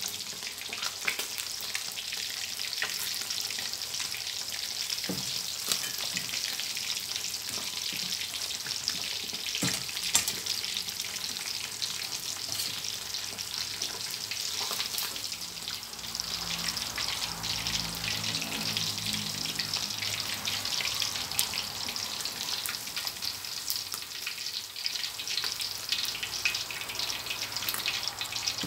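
Hot oil in a wok sizzling steadily around pieces of sun-dried red tilapia as they are lifted out with a slotted metal ladle, with a few sharp clicks.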